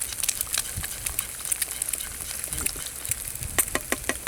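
An egg frying in a pan, a steady sizzle with frequent sharp crackles and pops of spitting fat.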